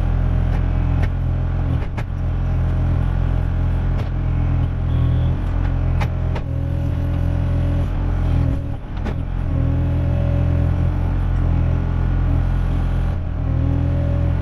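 Kubota KX040 mini excavator's diesel engine running steadily under load, with a hydraulic whine that rises and falls away several times as the boom and bucket move. A few sharp knocks are heard.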